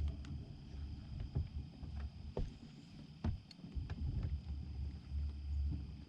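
Small fishing boat on the water: an uneven low rumble of water and wind against the hull and microphone, with a few sharp clicks and knocks.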